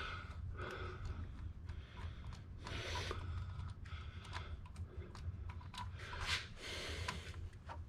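Light clicking and rubbing of hand tools working the thermostat-housing bolts, in irregular short bursts over a steady low hum.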